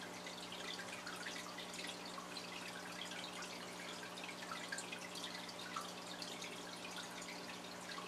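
Budgerigars giving soft, scattered chirps and twitters, faint and irregular throughout, over a steady low hum.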